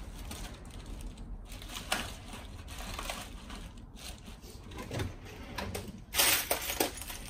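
Small parts and tools being handled: scattered light clicks and rattles, with a louder rustling clatter about six seconds in.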